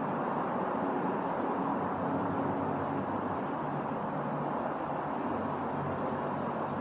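Steady rainfall, an even hiss with no thunder, over a faint low hum of city traffic.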